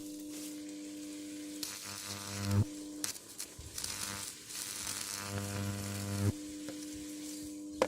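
Microwave oven transformer humming steadily, twice breaking into a sizzling, buzzing high-voltage arc that cuts off suddenly each time.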